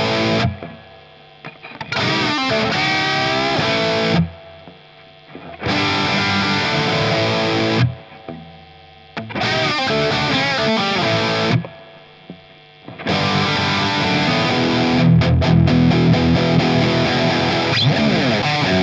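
Knaggs Kenai electric guitar with Seymour Duncan Seth Lover humbuckers, played with distortion. Loud chords ring for about two seconds, each followed by a quieter phrase of single notes with slides. This happens four times, then the last third is loud, continuous playing.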